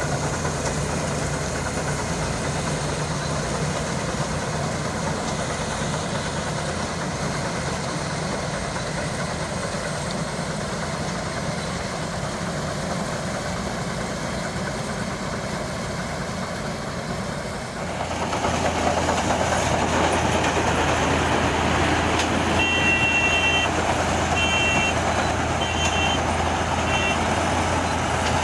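Ranger rice combine harvester running steadily, getting louder and rougher about two-thirds of the way through, with a few short bursts of high beeps near the end.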